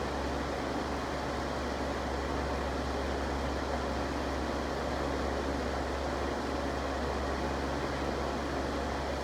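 Electric fan running steadily: an even rush of moving air over a low motor hum.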